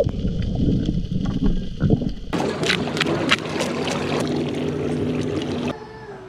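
A plastic fish scaler scraping the scales off a big-eye emperor on a boat: quick rasping strokes, about three a second, over wind and boat noise. Before it comes a low muffled rumble, and about a second before the end it cuts to a much quieter stretch with a faint steady tone.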